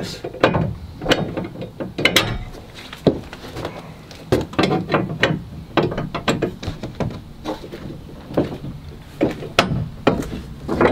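Repeated irregular clicks, knocks and rattles of a plastic shelf bracket being pushed and twisted into the slots of a moulded plastic shed wall panel. The bracket won't seat.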